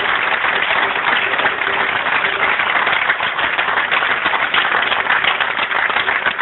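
A crowd clapping and applauding without a break.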